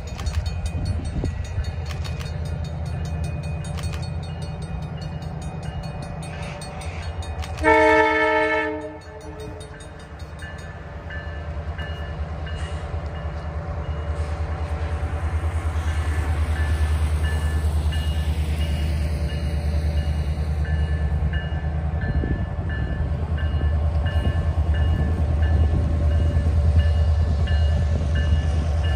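Canadian Pacific EMD GP20C-ECO diesel locomotives approaching, their engines a low rumble that grows louder as the train nears. About a quarter of the way in, the locomotive horn sounds one short blast of about a second. Afterwards a faint, rapidly repeating high ringing runs on beneath the rumble.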